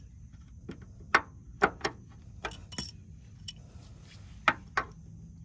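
Sharp metal clicks and clinks, about seven of them spaced unevenly, from an adjustable wrench clamped on a 1994 Mazda Miata's sheet-metal pinch weld as it is levered to bend the crushed flange back into place.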